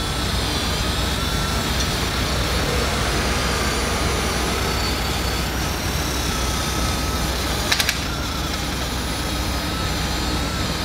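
Power tool with an abrasive pad running steadily, scrubbing rust and scale off the wheel hub's flat mounting face before a new brake disc goes on. A quick cluster of clicks comes about eight seconds in.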